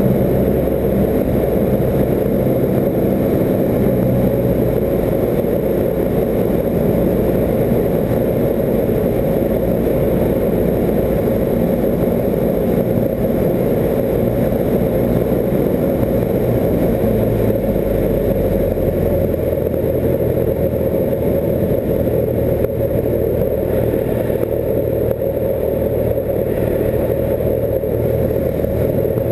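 Cessna 172's piston engine and propeller running steadily in flight, heard from inside the cabin as a loud, constant low drone. The low tones of the drone shift about eighteen seconds in.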